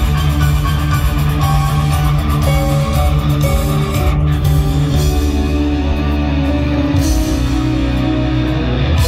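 Music led by guitar, with a steady bass underneath.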